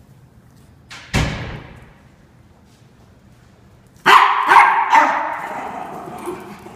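Norfolk terriers barking: one sharp bark about a second in, then a quick run of three loud barks about four seconds in, ringing briefly off the hard walls and floor.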